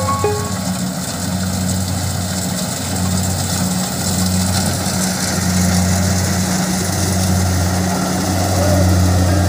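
Kubota DC 70 Plus combine harvester running steadily: a low diesel engine hum under a broad, even hiss of its working machinery.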